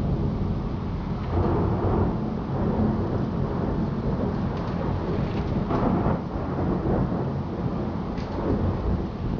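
Thunder rumbling in long rolls, swelling louder about a second in and again near the middle.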